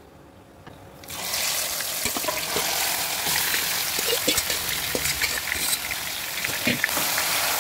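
Marinated chicken pieces dropped into hot oil in a kadai. Loud sizzling of deep frying starts about a second in and keeps going, with a few light knocks as a slotted steel spoon turns the pieces against the pan.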